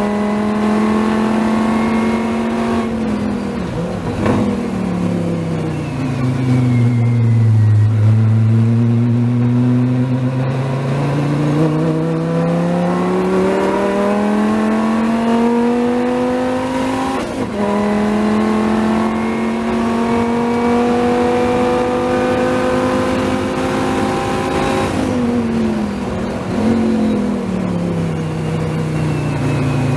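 Dodge Viper race car's V10 heard from the cockpit at racing speed: the engine note falls away under braking, then climbs steadily out of a long corner, drops sharply at an upshift about halfway through, climbs again, and falls off near the end with a short blip on a downshift.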